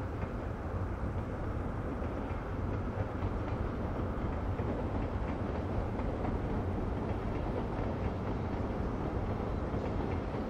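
Sukhoi Superjet 100's twin SaM146 turbofan engines, a steady low rumble as the airliner rolls out along the runway after touchdown.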